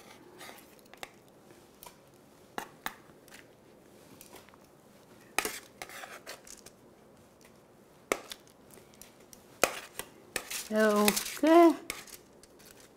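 Metal utensil scraping and tapping on a foil-lined baking sheet as roasted red pepper pieces are lifted off it, in scattered short clicks and scrapes. A brief pitched voice sound comes near the end.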